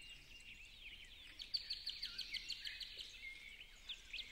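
Several songbirds singing and chirping in spring countryside, with a fast run of repeated high notes lasting about a second, starting about one and a half seconds in.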